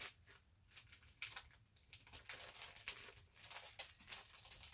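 Packaging crinkling and rustling in the hands as a small wrapped item is pulled at to get it open, in irregular short crackles with a little tearing.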